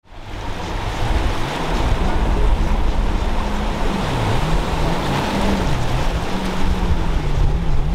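Motorboat running through choppy water, engine noise and the rush of wake and waves, with background music carrying a stepping, dipping bass line over it. The sound fades in over the first half second.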